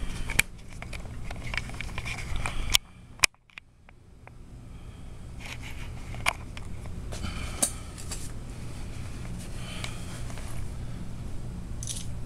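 Wooden snap mousetrap clicking and scraping on a concrete floor as a live mouse caught by the corner of the trap struggles, scattered light metallic clicks over a steady low hum. The sound drops away briefly about three seconds in.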